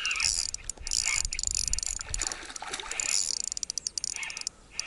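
Spinning reel clicking rapidly while a hooked pike is played on a bent rod, the ticking thinning out and stopping shortly before the end.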